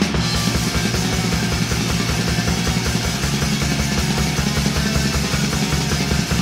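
Black metal music with a rapid, even drum beat under a dense, continuous wall of band sound.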